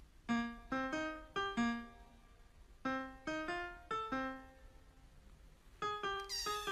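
Background music: a piano melody of single struck notes in short phrases, with short pauses between them. A high sweeping shimmer comes in near the end.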